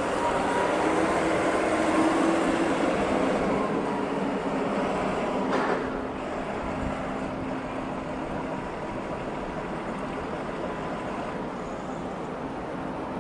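Steady machinery noise of a steel fabrication workshop, with a faint hum and one sharp knock about six seconds in, after which it drops slightly.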